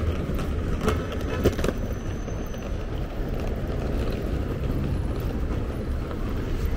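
Steady city street ambience with a low traffic rumble, and two sharp clicks about a second in.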